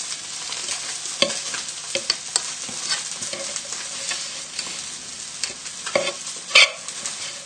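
A fork presses and scrapes boiled new potatoes against the side of a saucepan to crush them, with a few sharp clicks of the fork on the pan. Under it is the steady sizzle of trout frying skin-side down on high heat.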